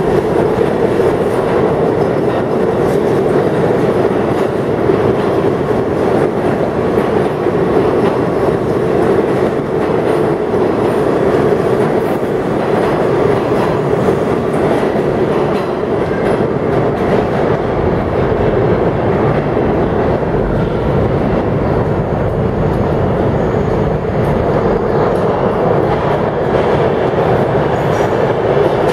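New York City Subway train running past in an underground station: a loud, steady rumble of steel wheels on the rails.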